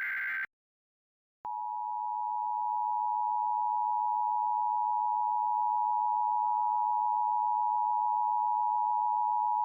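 Emergency Alert System transmission: the last SAME header burst of digital data tones ends about half a second in, followed by about a second of silence. Then the EAS two-tone attention signal starts about a second and a half in, two steady tones sounded together that hold without a break, announcing that an emergency alert message follows.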